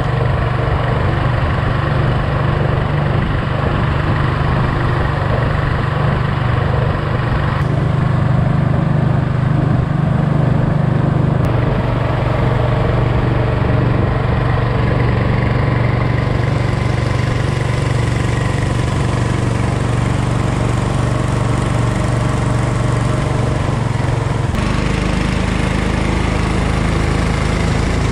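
12 hp Copperhead surface-drive mud motor running steadily under way, pushing a small duck boat along. The engine note holds even, shifting abruptly a few times where clips are joined.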